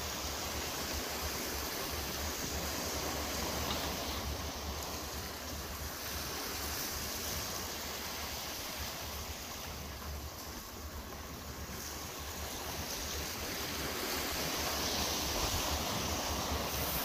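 Sea waves washing steadily against the rocks of a breakwater, with wind rumbling on the microphone.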